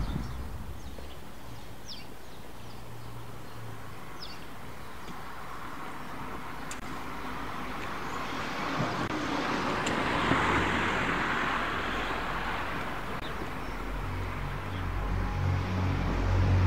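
Residential street ambience with traffic: a car passing, swelling to its loudest about ten seconds in and then fading, with a few short high chirps over it. Low steady music notes come in near the end.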